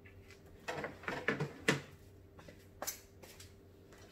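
A person getting up from a wooden dining chair at a table and moving off: a handful of light knocks and rustles in the first two seconds, the sharpest about halfway through, then two softer knocks.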